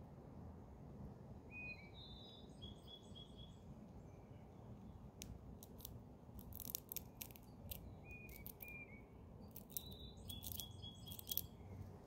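Eastern gray squirrel chewing a peanut, giving a run of sharp crunching clicks from about five seconds in, loudest near the end. Small birds chirp in short high notes, a few early on and more in the second half.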